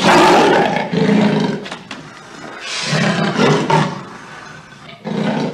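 Big cat roaring: a series of four rough roars, each about a second long, with short quieter gaps between them.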